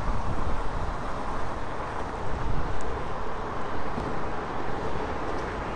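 Steady outdoor rumble and hiss: wind on the microphone over distant city traffic.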